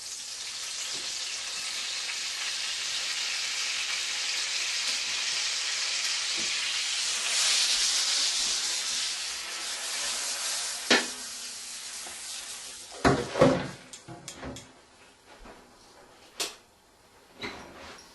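Cube steak frying in a hot pan, a steady sizzle that dies away after about twelve seconds. A few sharp clicks and knocks of utensils on the pan follow.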